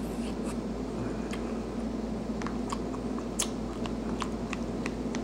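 Close-up chewing of a mouthful of rice with sauce, with scattered small clicks and taps, including a fork against a plastic food container, over a steady low hum.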